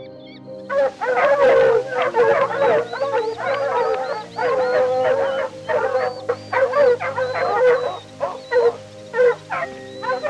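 A chorus of many overlapping, wavering howls and yips from a pack of wild canids, starting about a second in and going on in rolling waves, over steady background music.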